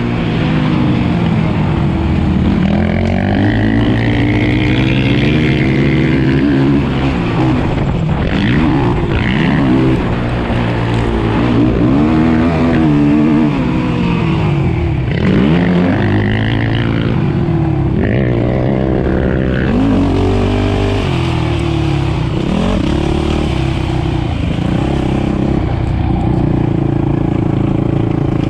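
Onboard sound of a 450-class race quad's single-cylinder four-stroke engine, revving hard and dropping off again and again as it accelerates, shifts and slows around a motocross track.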